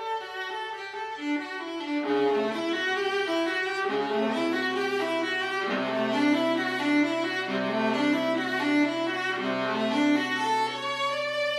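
Bowed string music, violin with a lower string part: a held low note comes in about two seconds in beneath a moving melody.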